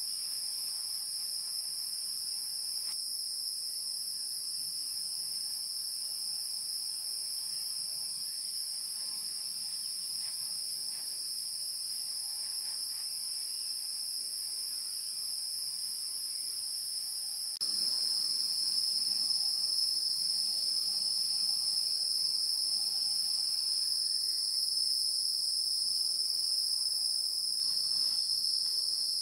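Steady, high-pitched shrilling of an insect chorus, which suddenly gets louder about two-thirds of the way through.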